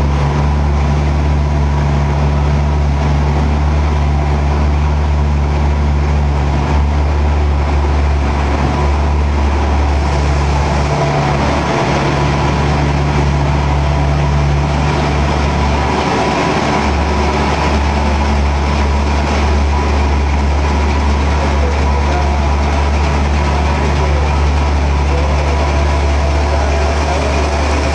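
Machinery of a core-filled snack extrusion line running: a loud, steady low motor drone with a continuous noisy rush on top.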